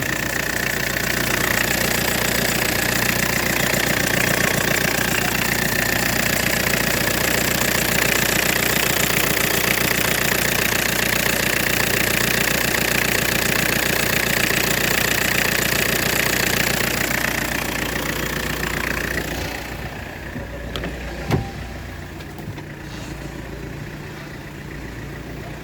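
Ford Mondeo 1.8 TD diesel engine idling while its power steering pump belt squeals steadily. The belt is slipping because the steering is held against its stop, and the belt needs replacing. The squeal dies away about nineteen seconds in, leaving the diesel idle, with a single sharp knock a couple of seconds later.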